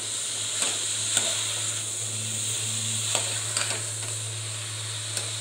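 Cabbage, capsicum and minced mutton sizzling over high flame in an aluminium pressure-cooker pot while a metal ladle stirs them, clicking and scraping against the pot now and then.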